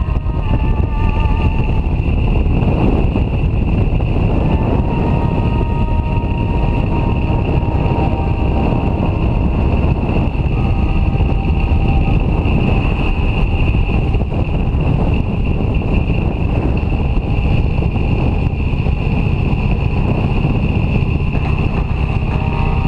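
Motorcycle running at steady cruising speed, its engine mixed with heavy wind rush on a bike-mounted camera. A constant high whistle runs through it.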